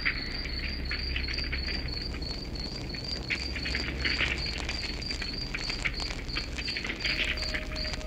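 Wood fire crackling and popping, with a cricket chirping steadily, a high-pitched chirp about three times a second.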